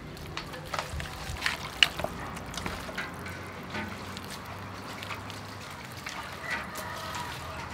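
Gloved hands kneading chicken pieces in a thick, wet chili marinade in a metal bowl: irregular squelching and sticky, slapping sounds. The sharpest squelch comes about two seconds in.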